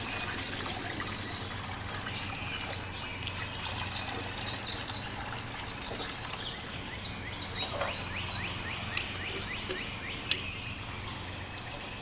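Water trickling and dripping back into a plastic bucket as a wet towel is squeezed and wrung out over it.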